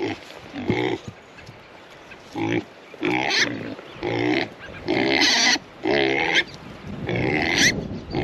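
Idaho pasture pigs calling: a run of about eight short, loud grunting calls a second or so apart.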